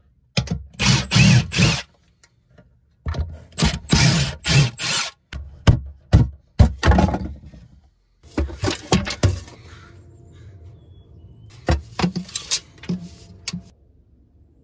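Cordless drill-driver backing screws out of wooden wall rails in four short bursts of a second or two each, with sharp wooden knocks as the loosened boards come away. Quieter handling clicks follow in the last few seconds.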